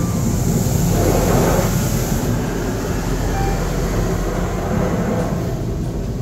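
Touchless car wash water jets spraying over the car, heard from inside the cabin: a steady rushing hiss over a low rumble, heaviest in the first couple of seconds and then easing.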